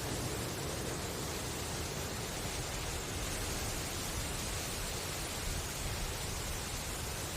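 Wind rustling through bamboo leaves: a steady, even hiss with no breaks or gusts.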